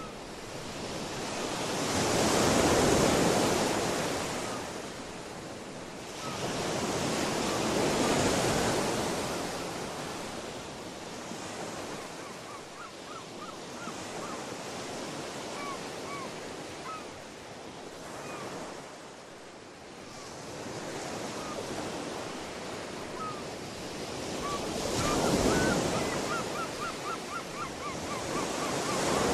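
Ocean waves washing ashore, the surf swelling and falling away every few seconds, with faint short high chirps over it in the second half.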